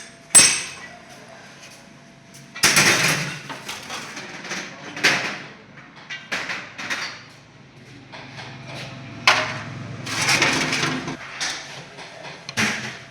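Irregular knocks and clinks of hand tools on metal motorcycle parts. About three seconds in and again near ten seconds there are longer rasping, scraping noises.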